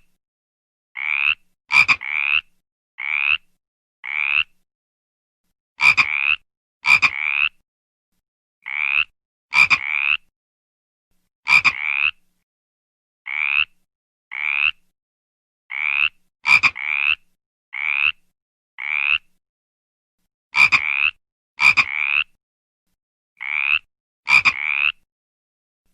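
A frog calling over and over: short croaks about one a second at uneven spacing, each rising slightly in pitch, some starting with a sharp click, with dead silence between calls.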